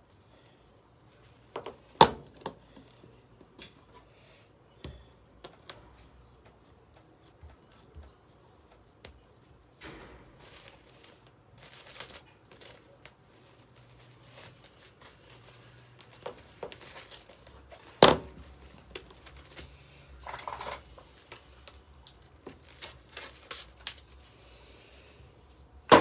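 Plastic cling wrap being pulled off its roll and crinkled around a ball of pie dough, with scattered rustling and small clicks. Two sharp knocks stand out, about two seconds in and about eighteen seconds in.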